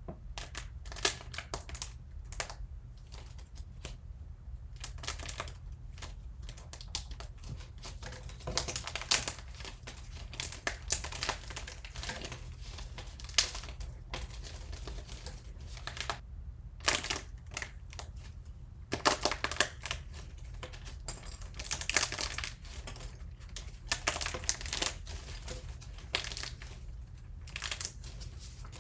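Close-miked crisp crackling, clicking and crunching of brittle objects being handled and broken, in irregular clusters with a few louder snaps, over a steady low hum.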